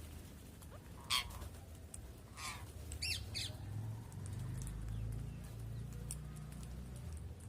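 A parrot squawking: a few short, harsh calls in the first half, the loudest about a second in. A low rumble runs under the second half.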